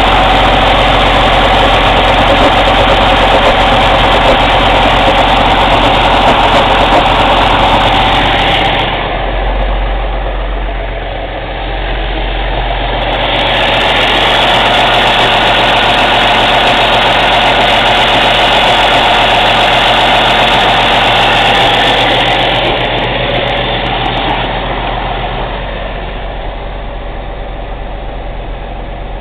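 Cummins ISX CM2250 inline-six diesel running during a particulate-filter regeneration, with loud chuffing noise from the intake that the owner suspects is turbo chuff during regeneration. The noise eases about 9 seconds in, comes back strongly a few seconds later, and drops off again near the end.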